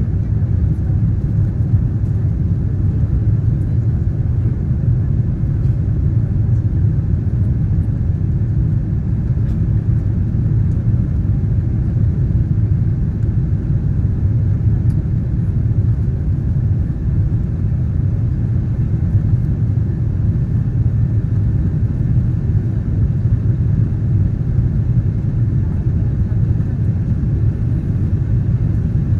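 Steady low rumble of jet airliner cabin noise: engines and airflow heard from inside the passenger cabin.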